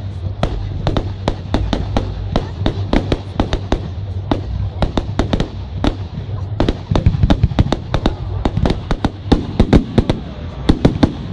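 Fireworks display: a rapid barrage of aerial shells bursting in sharp bangs and cracks, several a second, over a steady low rumble. The bangs grow louder and thicker from about seven seconds in.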